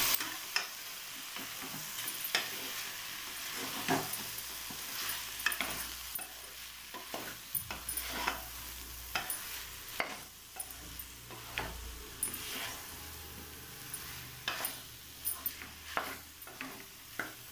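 Mushrooms frying in masala in an open pressure cooker, sizzling steadily while a spatula stirs them, with frequent irregular scrapes and taps of the spatula against the pot.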